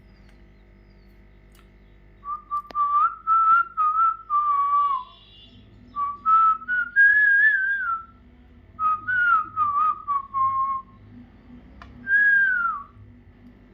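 A parrot whistling a melody in four short phrases separated by pauses, the pitch stepping and gliding up and down.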